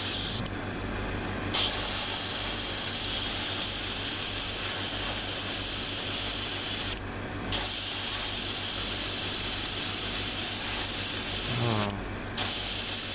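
Airbrush spraying paint in a steady hiss. The hiss cuts out briefly three times, about half a second in, about seven seconds in and near the end, as the trigger is let off between passes.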